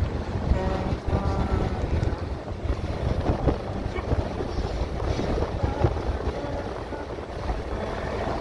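Wind buffeting the microphone over the steady low rumble of a moving car's road noise.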